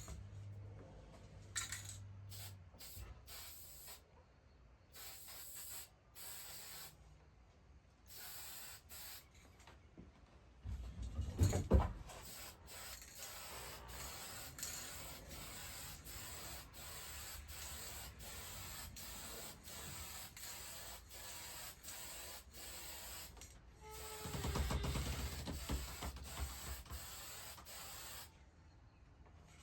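Clear gloss guitar lacquer hissing from a spray nozzle in many short passes with brief pauses between them, gloss coats going onto a Telecaster body over sanding sealer. Louder handling noise comes in about 11 seconds in and again around 24 seconds.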